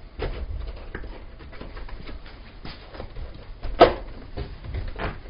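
Irregular knocks and bumps from the window air-conditioner seal panel being handled and fitted into the window frame, with one sharp, loud knock about four seconds in.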